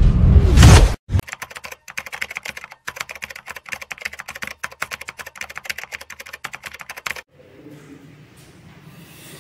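A loud boom sound effect cuts off about a second in. Then a keyboard-typing sound effect runs for about six seconds, a rapid train of sharp clicks, and stops abruptly. Faint room tone follows.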